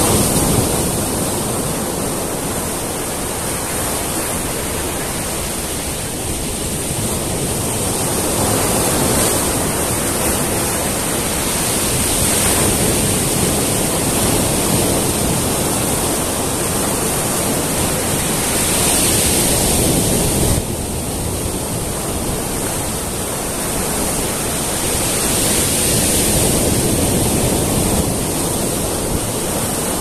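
Surf breaking on a sandy beach and washing around rocks: a steady rushing that swells and eases every several seconds, with an abrupt drop in level about twenty seconds in.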